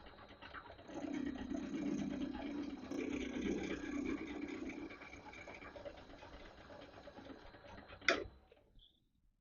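Metal lathe running while a cutting tool faces and chamfers the heads of silver-steel bolts, the cutting noise uneven and fading through the second half. A single sharp click about eight seconds in, after which the sound stops.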